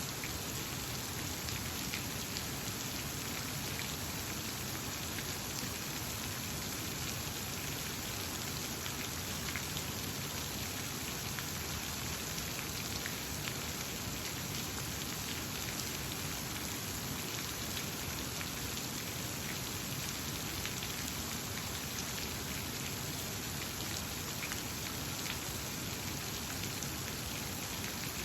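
Steady, even rush of water with faint scattered drip-like ticks.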